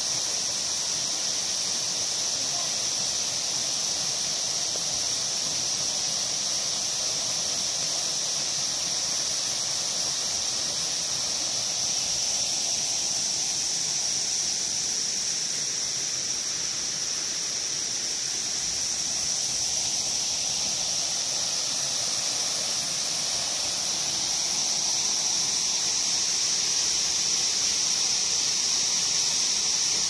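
A steady, high-pitched insect drone, of the kind cicadas make in tropical forest, runs over the constant rush of a jungle waterfall. The drone grows a little louder in the last few seconds.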